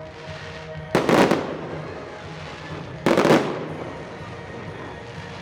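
Fireworks salute: two shell bursts, about a second in and again two seconds later, each a quick cluster of bangs that fades off.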